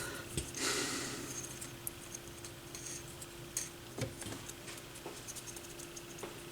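Light rubbing and scattered small clicks and taps as white grease is cleaned off a turntable's bottom plate, with a faint steady hum underneath.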